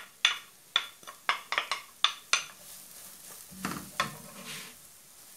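Diced onion going into melted butter in a nonstick frying pan. A quick run of sharp taps against the pan as it is added and stirred with a wooden spoon, then a faint steady sizzle as the onion starts to fry.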